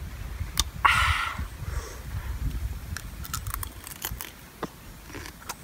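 A person biting, chewing and crunching a piece of crab shell dipped in chili sauce, close to the microphone. The loudest sound comes about a second in, followed by a run of small crisp clicks and crunches.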